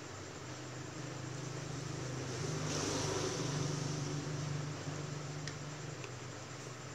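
A low engine hum that swells over a couple of seconds and then fades, like a vehicle going past, with a couple of faint clicks near the end.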